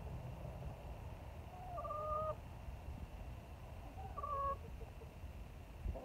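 Chickens calling twice, each a short held note about half a second long, about two seconds apart, over a low steady rumble.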